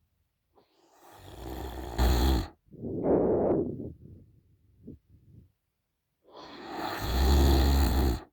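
A woman snoring in deep sleep with her mouth open: two long, loud snores, one about a second in and one about six seconds in, with a shorter breath out after the first.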